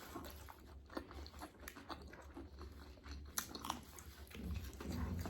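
Close-miked chewing and biting of crispy KFC fried chicken, with irregular short crunches.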